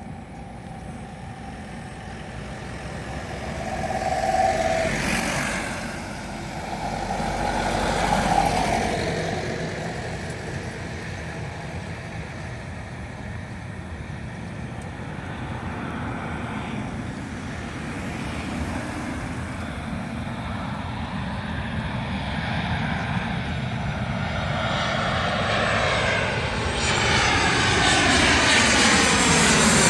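Airplane engines growing steadily louder as the aircraft approaches low, with a sweeping tone that falls in pitch near the end. Two shorter swells of noise come about four and eight seconds in.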